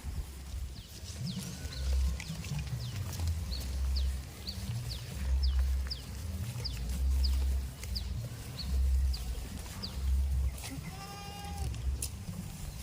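A goat bleats once, briefly, near the end. Under it runs a pulsing low rumble, and many quick high chirps are heard throughout.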